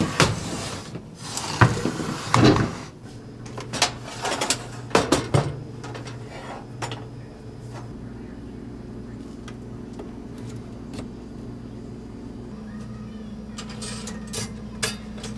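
Kitchen handling sounds: a run of sharp knocks and clunks over the first few seconds, then a steady low hum that changes pitch partway through, with a few clicks near the end.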